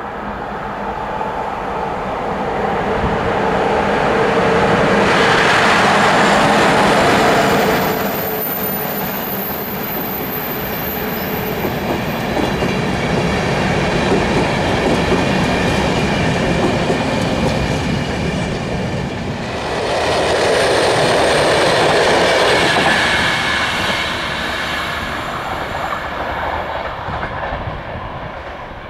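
A locomotive-hauled passenger train passes close by. Its wheels rumble and clatter on the rails, loudest about five seconds in and again about twenty seconds in, with a thin high whine for a few seconds around ten seconds in.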